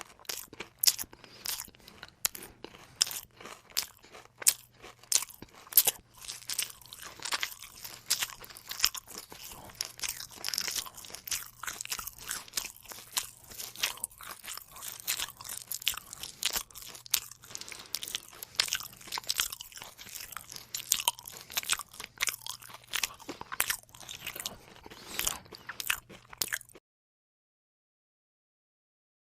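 Close-up chewing of crunchy food: a dense run of crisp crunches and bites, with some louder sharp cracks, that cuts off suddenly about three seconds before the end.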